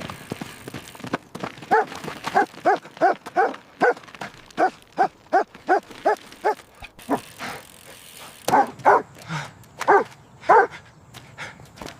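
Dog barking in a rapid series, about three barks a second, then pausing briefly before a few more barks.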